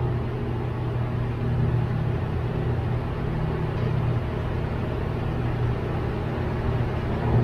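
Steady low mechanical hum, even and unchanging throughout.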